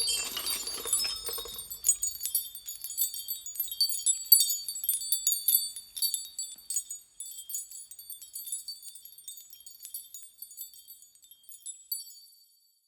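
High, tinkling chimes struck irregularly, many overlapping rings at first, thinning out and stopping shortly before the end.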